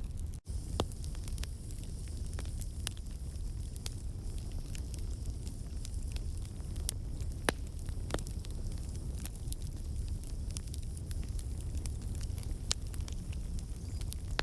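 Campfire crackling, with a steady low rumble of the flames under frequent small crackles. A few sharper pops come about halfway through and near the end. The sound cuts out for an instant about half a second in.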